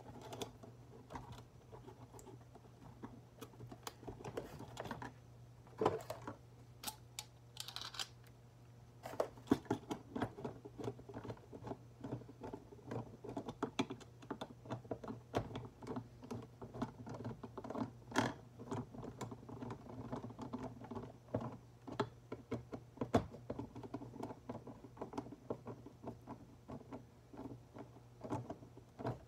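Hand tool and stiff cable wires worked inside a plastic electrical box, making irregular rapid clicks and scratches with a few sharper knocks. The cable ends are being prepared by stripping the sheathing and sorting the wires.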